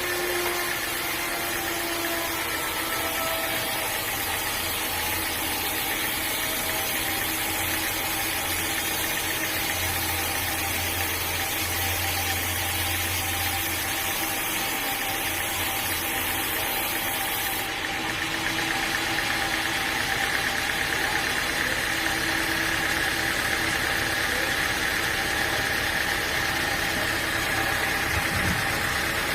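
A sawmill's engine running steadily, with a constant hum of several steady tones; the higher part of the sound changes abruptly about two-thirds of the way through.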